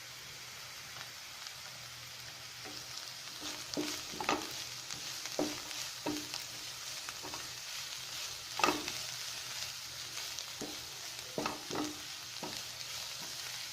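Chopped onions, green chilli, ginger, garlic and curry leaves frying in oil in a pan with a steady sizzle. A stirring utensil scrapes and taps the pan at irregular intervals as they are sautéed.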